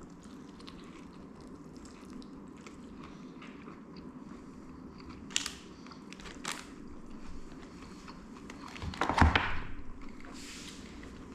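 A person chewing and biting Korean fried chicken close to the microphone: soft crunching and small mouth clicks, with a few sharper crunches and a louder burst about nine seconds in.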